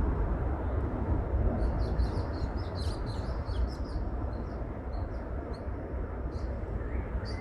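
Birds chirping: a quick run of short, high chirps about two seconds in, then scattered single chirps, over a steady low rumble.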